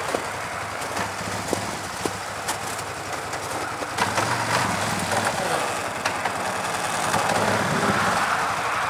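Single-cylinder four-stroke engine of a 1996 Polaris Magnum 425 ATV running at low throttle as the quad creeps forward. The pitch rises and falls a little about four seconds in and again near the end, with a few light clicks.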